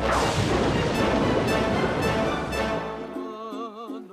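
Cartoon soundtrack: a loud, noisy sound effect starts abruptly and fades over about three seconds under the music. A melody of wavering notes follows near the end.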